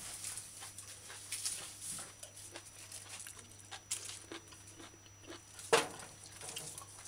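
Someone eating: faint chewing and crunching with scattered small clicks, and one sharper click about six seconds in.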